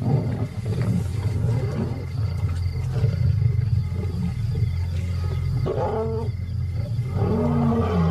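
Lions growling over a kill, a deep continuous rumble from the pride as they feed and jostle. Two louder, pitched growls break out in the second half.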